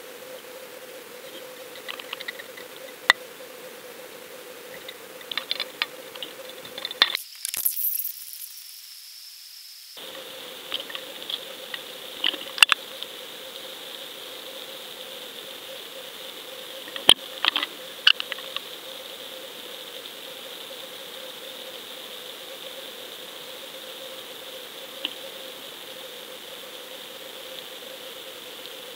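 Muffled sound from a camera in a waterproof housing sinking on a fishing line: a steady low hum and high whine over a faint hiss, with scattered sharp clicks and crackles. About seven seconds in, the hum briefly drops out behind a sharp rushing hiss, then comes back.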